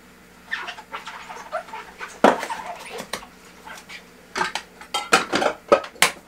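Kitchenware being handled: a run of irregular clinks and knocks, with the sharpest clatter about two seconds in and another near the end.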